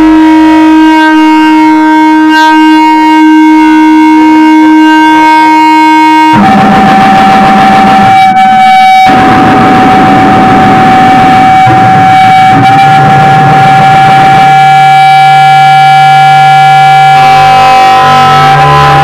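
Loud drone from an electric guitar played through effects and an amplifier: long, steady held tones over a layer of noise, switching abruptly to new pitches about six seconds in and again around nine and fourteen seconds in.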